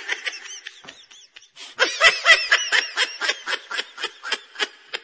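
A person laughing. A snicker at first, then from about two seconds in a quick, even run of short pitched laughs, about five a second.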